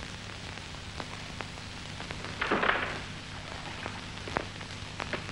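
Hiss and scattered crackles of an old optical film soundtrack over a low steady hum, with one short louder sound about two and a half seconds in.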